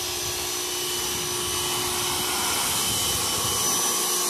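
Electric pressure washer running steadily: a constant motor hum with a high hiss, growing slightly louder.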